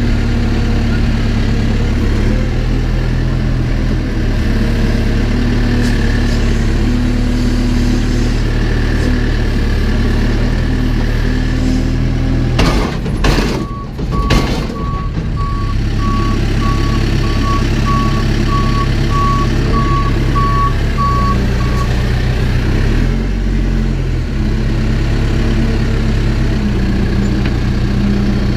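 Backhoe engine running steadily under work. About halfway through there are a couple of loud knocks, and then its reversing alarm beeps for about eight seconds, about two beeps a second.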